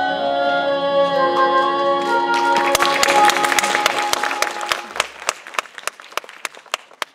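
The final held chord of a stage-musical song ends, and about two and a half seconds in an audience breaks into applause, which thins to scattered claps near the end.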